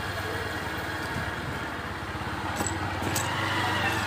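Motorcycle engine running steadily while riding, with wind and road noise, heard close up from the pillion seat.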